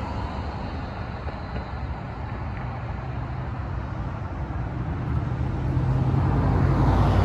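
Street background with a motor vehicle's engine rumble that grows louder over the last couple of seconds as it approaches.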